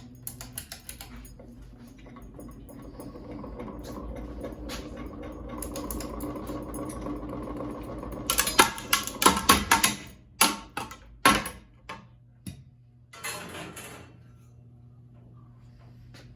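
A ceiling fan's motor hum grows steadily louder for several seconds. About eight seconds in, a run of loud, irregular knocks and clatters starts and thins out over the next five seconds, leaving a quieter hum.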